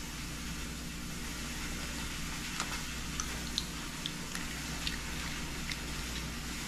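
Quiet steady kitchen background of low hum and faint hiss, with a few faint light clicks of eggshell as an egg is cracked and its yolk passed between the shell halves to separate it.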